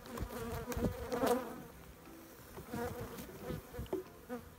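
Honeybees buzzing around an open hive, single bees flying close past with their buzz rising and falling in pitch, the colony mildly stirred up by the hive being worked. A few light knocks among the buzzing.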